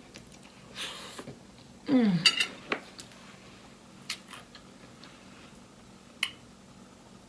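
A few scattered clinks and taps of dishes and utensils, the loudest cluster about two seconds in with a short ringing clink, just after a brief falling vocal sound.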